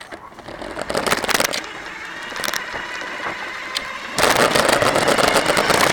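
Rough crackling and rattling from a camera mounted on a moving RC car, with sharp cracks in the first seconds and a jump to louder, denser noise about four seconds in.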